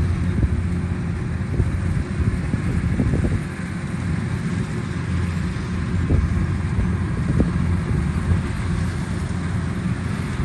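Kubota rice combine harvester's diesel engine running steadily, with a few short knocks from the machine scattered through it.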